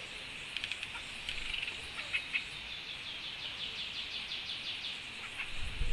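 Wild birds calling around a fruit feeder: scattered short chirps, then a fast repeated trill from about halfway through, over a steady hiss of stream water. A dull low bump comes near the end.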